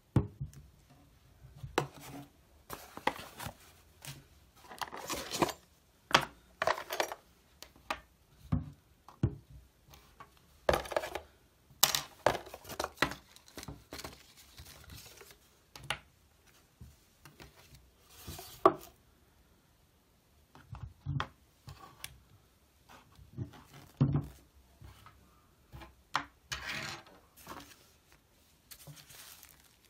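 Unboxing handling noises: irregular knocks and clicks as a portable speaker and its accessories are set down on a wooden table, mixed with short bouts of rustling packaging.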